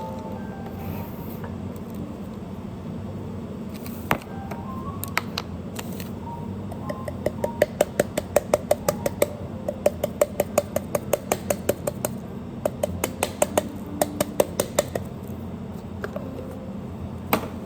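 Faint background music over a steady low hum, with a quick run of sharp clicks, about four a second, from about seven seconds in to about fifteen, and a single sharp click near the start and another near the end.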